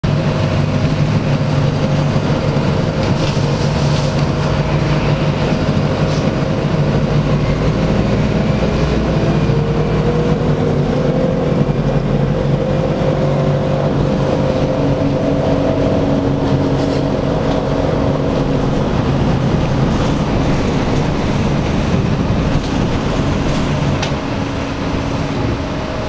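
Bus engine and road noise heard inside the passenger cabin while driving. There is a steady low drone whose engine tones drift slightly in pitch as the speed changes, with a few short rattles.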